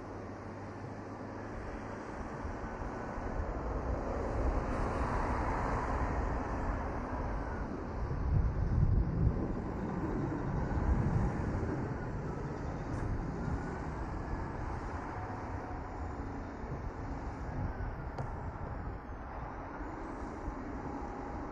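Road traffic passing on the street below, a steady outdoor hum of engines and tyres that swells about four seconds in and again, loudest, around eight to eleven seconds in.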